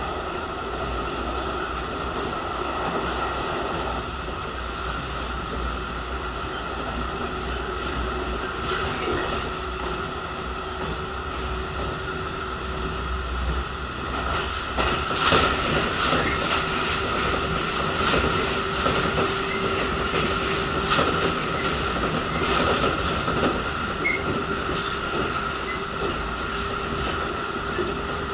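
JR local electric train running at a steady speed, heard from inside the passenger car: a continuous rumble and hum of the running gear, with sharp clicks of the wheels over rail joints coming in bunches from about halfway through.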